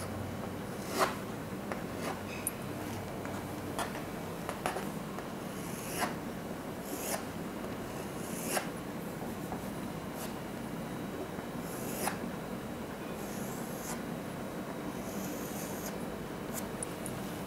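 Chalk drawing on a blackboard: sharp taps as the chalk meets the board and short scratchy strokes as lines and small circles are drawn, over a steady room hiss.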